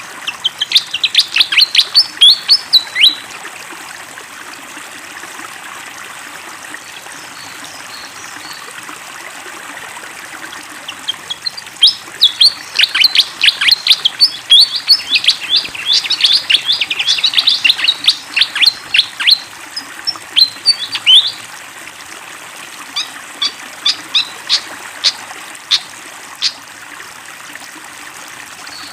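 A fantail (sikatan kipas) singing in quick bouts of rapid, high chirping notes: a short bout about a second in, a long bout from about twelve to twenty-one seconds, and a sparser run of single notes a few seconds later. Underneath runs the steady sound of flowing water.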